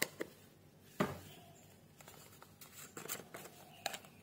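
Scattered light clicks and knocks of kitchen utensils and seasoning containers being handled, the loudest a single knock about a second in and a cluster of small clicks around three seconds.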